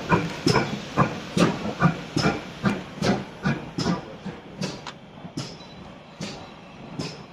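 GWR Modified Hall class 4-6-0 steam locomotive 6990 Witherslack Hall working in reverse: steady exhaust beats from its two cylinders, a little over two a second, over a hiss of steam. The beats fade as it draws away.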